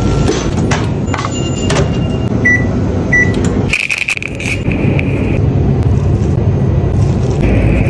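Steady machine hum with two short electronic appliance beeps a little under a second apart, near the middle. The hum drops out briefly just before four seconds, then carries on.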